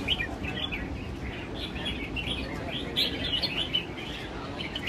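Several caged red-whiskered bulbuls singing at once, their short, bright chirped phrases overlapping continuously.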